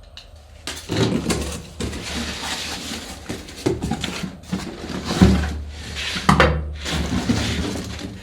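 A parcel being unpacked: packaging rustling and parts being handled, with scattered knocks and clicks, starting about a second in.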